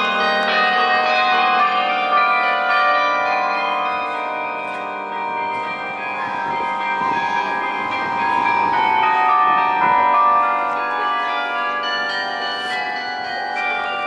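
Bells of the Chambéry château carillon ringing, many bell tones struck in turn and sounding over one another in a continuous peal.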